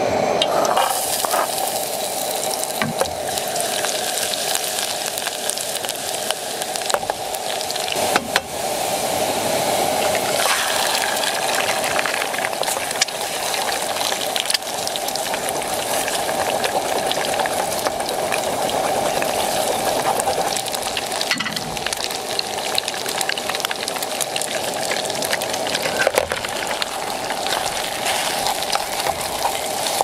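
Food frying in a pan: a steady sizzle with many small crackles and pops throughout.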